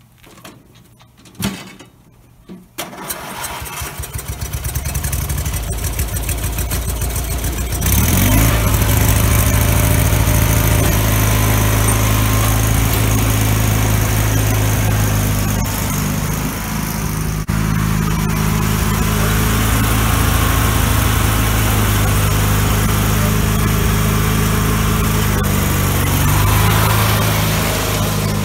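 A couple of knocks, then a 1990 Murray lawn tractor's old Briggs & Stratton opposed-twin engine is cranked by its starter for about five seconds, catches and runs steadily and loudly, freshly set running after more fuel was given at the idle screw.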